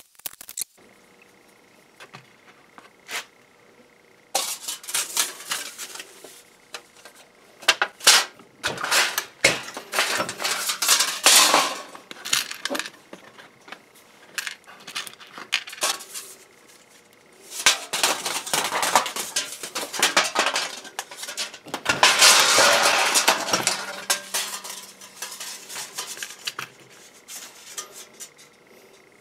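Small steel press dies and a hand tool clinking and rattling against the snap press and the bench as its die sets are changed. The clatter comes in two long spells separated by a quieter pause.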